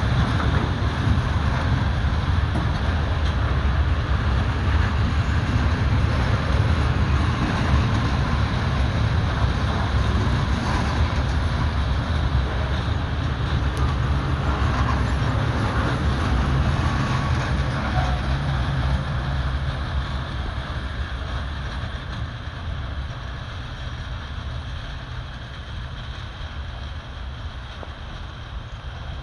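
Loaded coal freight train rolling on the rails: a steady heavy rumble that fades away over the last third.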